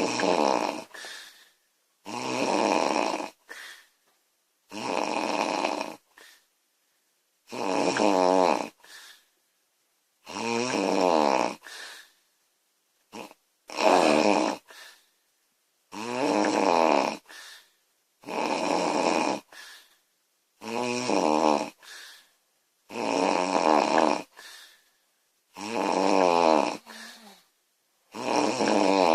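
A woman snoring loudly in a steady rhythm, about a dozen snores, one every two and a half seconds or so. Each long snore is followed by a short, quieter breath.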